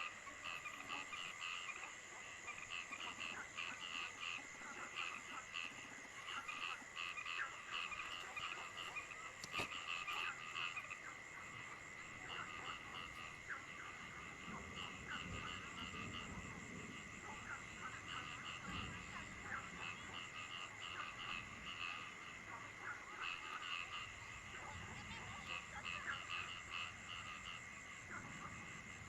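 A chorus of frogs croaking in quick, repeated calls, many overlapping, over a steady high-pitched drone.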